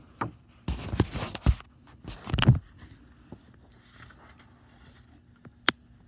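Rustling of a paper program booklet as it is held open and shifted, in two bursts in the first three seconds. A single faint click comes near the end.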